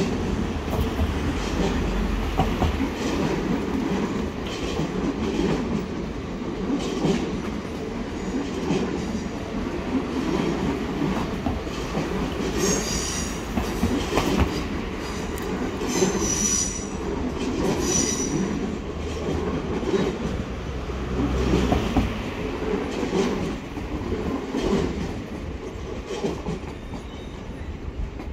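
Regional electric train rolling across the station tracks and points, with a steady rumble and scattered clacks of wheels over rail joints. A few short, high wheel squeals come about halfway through.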